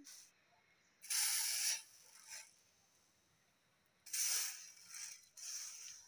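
Uncooked rice grains rustling and swishing on a woven bamboo tray as hands spread and sort them. There is one longer swish about a second in, then three shorter ones from about four seconds in.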